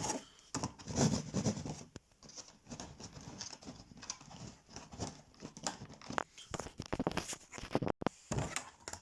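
A locomotive's protective packaging being handled and opened by hand: irregular rustles, scrapes and sharp clicks.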